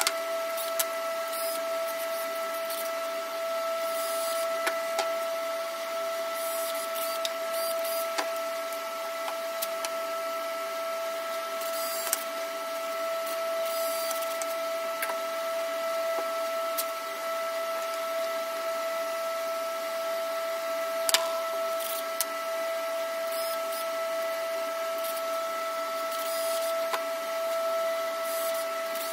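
A steady mechanical whine from a running machine, with scattered light knocks and scrapes as wooden frame pieces are handled on the bench, and one sharper knock about two-thirds of the way through.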